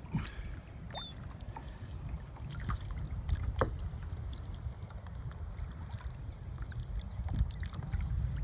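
Kayak paddles dipping and splashing in shallow water, with scattered small splashes over a steady low rumble.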